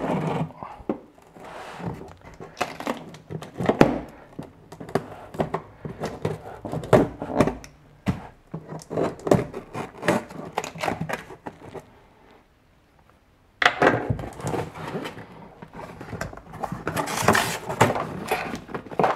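Cardboard shipping box handled and opened by hand: a run of short taps, knocks and scrapes on the cardboard, a brief lull a little past the middle, then a louder stretch of cardboard scraping and rustling as the top flaps are pulled open.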